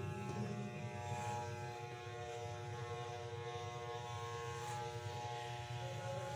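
Electric hair clippers buzzing steadily as they shave a man's head down close.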